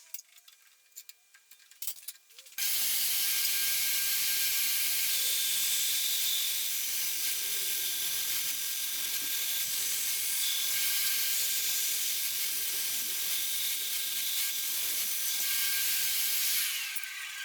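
Power saw running steadily while ripping a strip of padauk to width. A few faint clicks come first; the saw noise starts abruptly a little over two seconds in and dies away near the end.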